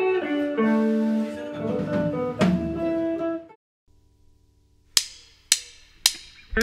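A plucked-string melody with ringing notes that fades out about three and a half seconds in, then a short silence, then drumsticks clicked together in an even count-in, about two clicks a second, the last one landing at the very end.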